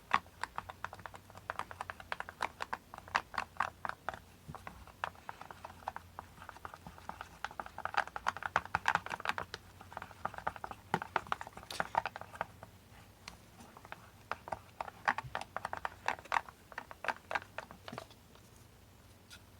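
Glue and shaving-foam slime mixture being stirred in a container: a fast, irregular run of soft clicks and squishes. It eases off briefly about two-thirds of the way through and stops near the end.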